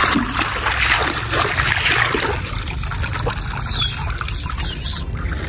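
Water streaming and dripping back out of a mesh dip net as it is lifted from shallow muddy water, heaviest in the first couple of seconds, then thinning to drips.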